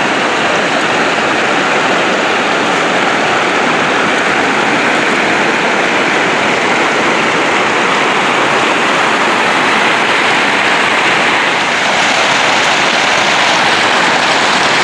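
Fast-flowing mountain river rushing, a loud, steady roar of water.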